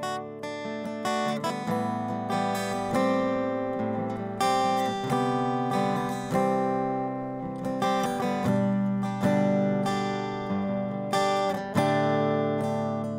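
Background music: an acoustic guitar instrumental of plucked and strummed chords, each note striking and dying away.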